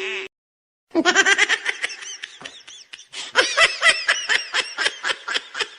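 Laughter, high-pitched and fast, in many short bursts, starting about a second in with a brief break near the three-second mark; an edited-in laughing sound effect.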